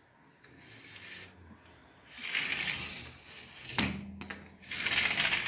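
Rustling and rubbing handling noise as the phone is moved close among the potted plants, with leaves brushing against it, in several noisy bursts and a sharp knock just before the last one.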